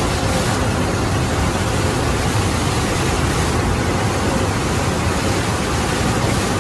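Floodwater rushing in a loud, steady torrent.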